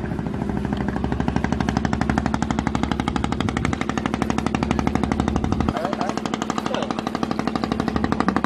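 A small engine running with a fast, even, rattling beat; its deepest part drops away about two-thirds of the way through.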